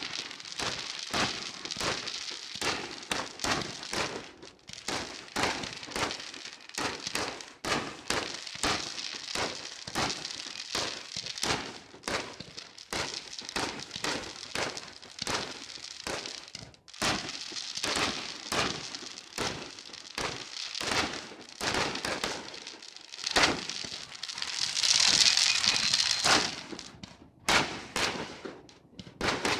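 Fireworks going off in a dense, continuous run of bangs and crackles, several a second, with a louder stretch of crackling hiss about twenty-five seconds in.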